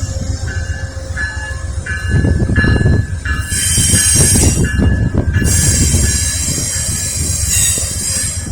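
Amtrak Northeast Regional passenger train rolling through a curved connector track: a steady low rumble of the train, with loud high-pitched wheel squeal starting about three and a half seconds in. A short repeating tone sounds about twice a second through the first half.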